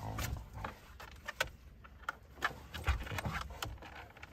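Handling noise from a man playing with a dog in a harness: scattered light clicks and soft knocks with rustling, a few stronger knocks near the end.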